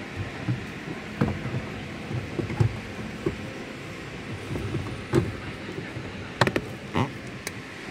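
A string of short knocks and clicks from a gloved hand handling parts in the recess under the dashboard, the sharpest near the end, over a steady hiss.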